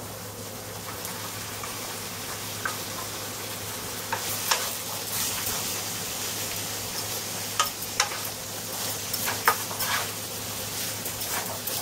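Chopped pipian squash tipped from a bowl into a hot frying pan of sautéed onion, sizzling steadily in the oil. From about four seconds in come scattered clatters and knocks as the pieces land and are stirred with a wooden spatula.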